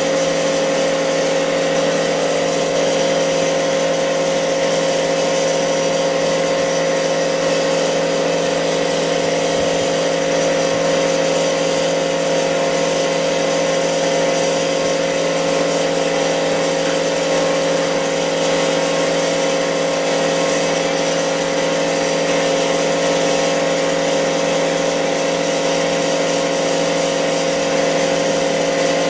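Fully automatic polarizer film laminating machine running with a steady, unchanging mechanical hum of several even tones.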